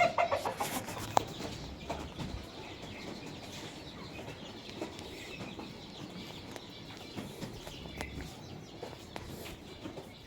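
Domestic chickens clucking: a loud, pulsing burst of calls in the first second, a sharp click just after, then softer scattered clucks.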